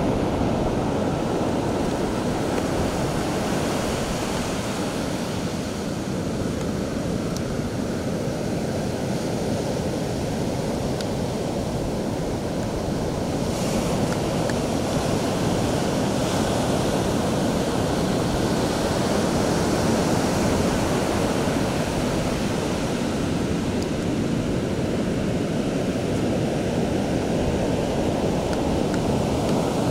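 Ocean surf breaking on a sandy beach: a steady wash of noise with no distinct strokes, growing a little louder about halfway through.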